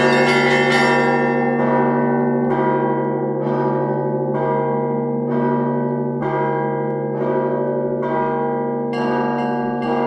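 Church bells ringing: a deep, steady bell hum sustains underneath while a bell is struck about once a second, each stroke ringing out and fading. About nine seconds in, more bells join in a brighter, denser peal.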